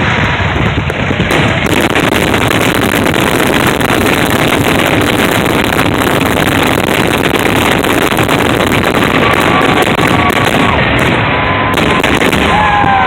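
Fireworks going off in a dense, continuous barrage: rapid overlapping bangs and crackling with no break, as in a show's finale.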